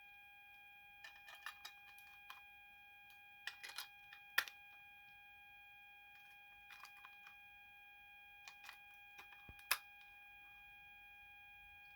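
A glitching Furby's speaker holding one steady, faint electronic tone with overtones, the kind of stuck audio glitch these RL/C276 Furbys are known for. Over it come scattered plastic clicks and taps in small clusters, the sharpest about four and a half seconds in and another just before ten seconds.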